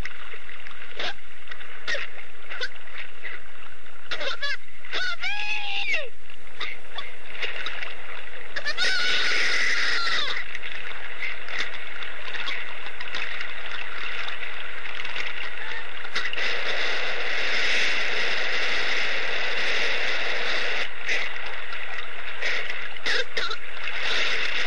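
Electroacoustic water soundscape: a steady wash of water noise, thicker in the second half, with scattered splashes and drip-like clicks. A few wailing cries rise and fall in pitch through it, twice about five seconds in and once more just before the tenth second.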